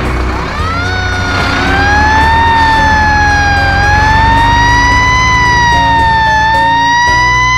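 Fire-truck siren wailing, rising in about half a second in and then slowly sweeping up and down in pitch, over steady background music.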